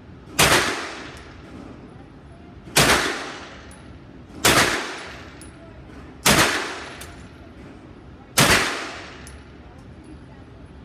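CZ Scorpion EVO 3 S1 9mm carbine firing five single semi-automatic shots at an uneven pace, about two seconds apart. Each shot has a reverberant tail in the indoor range.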